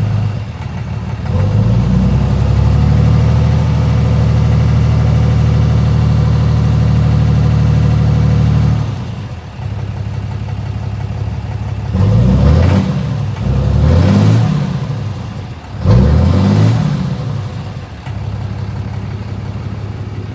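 Ram 2500's 6.7 L Cummins inline-six turbo diesel, parked with the AC on, held at raised rpm for about seven seconds, then dropping back to idle. It is then revved three times in quick blips and settles back to idle. This is a test of a knock that shows at idle with the AC load and goes away when the engine is revved; a dealer tech suspects a fuel knock or a hung-up injector.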